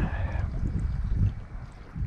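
Wind buffeting the microphone on an open boat, an uneven low rumble that eases off briefly near the end.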